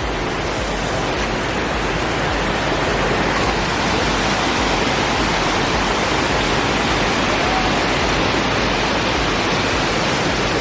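Waterfall or fast-flowing water rushing steadily, an even, unbroken noise.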